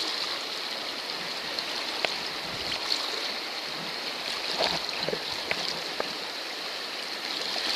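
Rushing river water, a steady hiss with a few faint ticks and splashes scattered through it.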